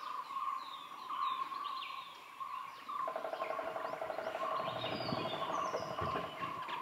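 Forest ambience: many birds chirping in short, falling notes over a steady high drone. About halfway through, a fast buzzing rattle joins lower down.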